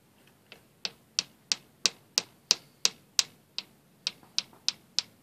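Hammer striking a bullet starter in steady sharp blows, about three a second, the first couple lighter, to drive a tight-fitting 425-grain conical bullet into the muzzle of a .54-calibre Hawken muzzleloader; the bullet is too tight to start by hand.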